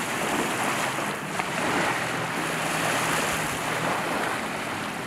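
Small waves washing on a sandy lakeshore, with wind rushing over the microphone; a steady noise without breaks.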